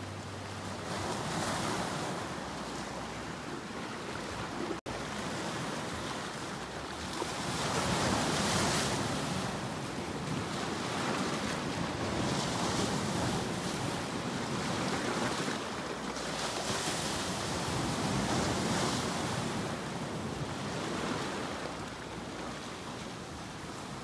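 Sea surf breaking and washing over shoreline rocks: a continuous rush that swells and eases every few seconds as each wave comes in. A split-second dropout breaks it about five seconds in.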